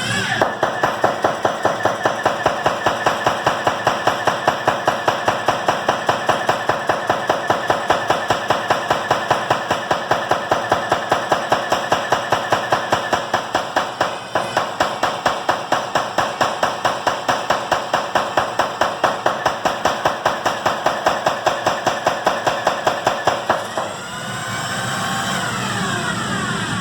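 Homemade power hammer driven by a 1/2-inch DeWalt drill, its 12-pound head on a trailer leaf spring pounding a hot round bar flat on the anvil. The blows come at an even pace of about three to four a second over the drill's whine. Near the end the blows stop and the drill's whine rises in pitch as it runs free.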